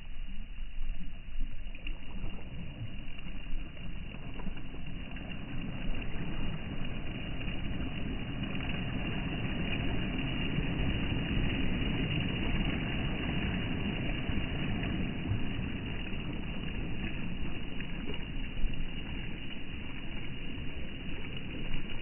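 Small sea waves breaking and washing up a sand-and-pebble shore, a steady surf noise that grows fuller toward the middle as a wave breaks.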